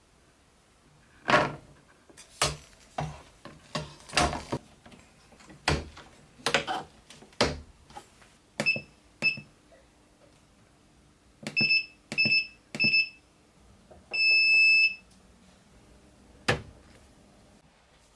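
A run of sharp knocks and clatter from tools or parts being handled on a workbench. These are followed by short electronic beeps, each with a click like a button press: two, then three, then one longer beep lasting nearly a second, and a last knock.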